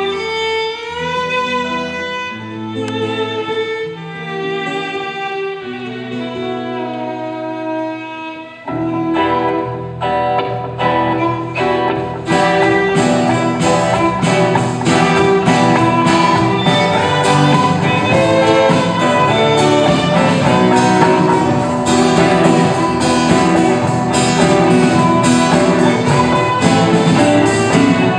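A live band plays an instrumental passage. A violin carries the melody over low held notes, then about nine seconds in the full band comes in with electric guitars, louder and denser. A steady beat joins a few seconds later.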